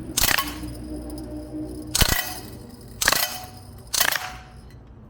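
CO2-powered BB gun fired four times, single shots roughly a second apart, each a sharp crack with a short ringing tail.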